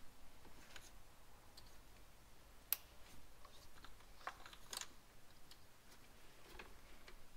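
Plastic electrical connectors being pushed onto the fuel injectors of a Ford 4.6L V8, giving a few scattered sharp clicks, the sharpest about a third of the way in. The click is the connector's lock snapping home, the sign it is fully seated.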